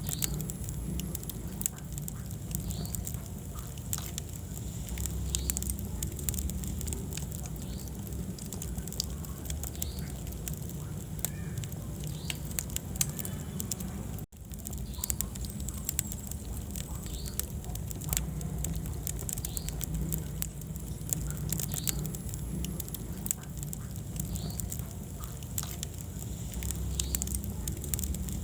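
Wood fire burning in a fireplace: irregular crackles and sharp pops over a steady low rumble of the flames, with a split-second dropout about halfway through.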